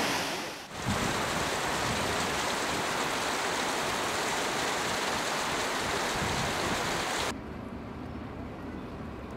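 Steady rushing noise of a powerful waterfall, with a brief dip just under a second in; the rush then drops abruptly to a quieter hiss about seven seconds in.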